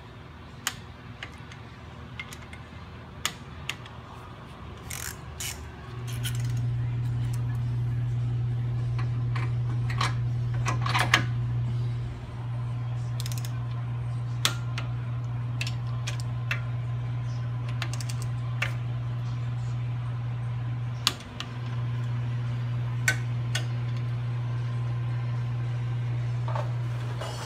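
Hand tools and bolts clinking against a brake caliper and its bracket while it is bolted on: scattered sharp metallic clicks and clinks. Under them a steady low hum starts about six seconds in and drops out briefly twice.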